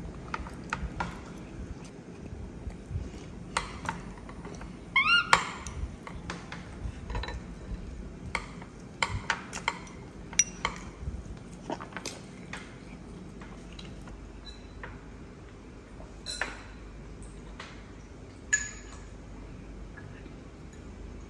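A metal fork clinks and scrapes against a small ceramic bowl many times as a baby monkey eats from it with the fork. About five seconds in, a quick run of short, high, rising squeaks is the loudest sound.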